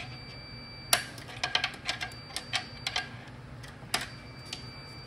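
A pick tool clicking and scraping against the snap ring inside a Toyota AB60E automatic transmission case: a string of irregular sharp metal ticks as the snap ring retaining the clutch return spring is worked loose.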